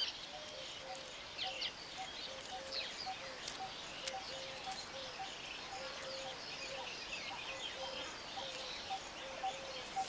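Small birds chirping and twittering, with a soft low note repeating about twice a second underneath.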